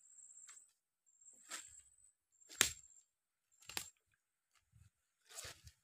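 Footsteps crunching through dry leaf litter, about one step a second.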